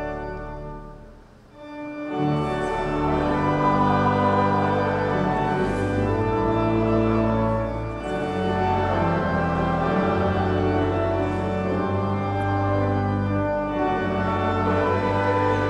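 Woolsey Hall's pipe organ, the Newberry Memorial Organ, playing full sustained chords. It fades about a second in, comes back in strongly at about two seconds, and plays on with a brief break near eight seconds.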